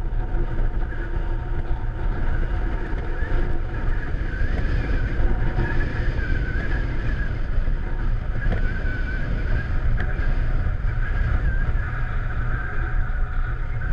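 Twin outboard motors running steadily on a towboat pulling another boat on a taut tow line, with water rushing past the hull.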